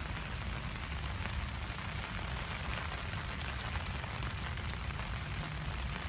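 Steady rain falling on grass and mud, an even hiss.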